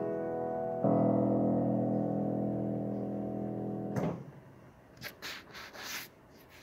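Cable-Nelson piano playing the final chord: a full chord struck about a second in and held for about three seconds, then cut off as the keys are released. Faint rustling and knocking follows.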